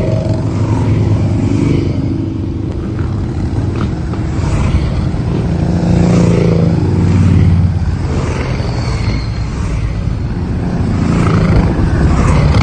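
A line of cruiser motorcycles riding past one after another, their engines loud and steady, swelling and falling in pitch as each bike goes by.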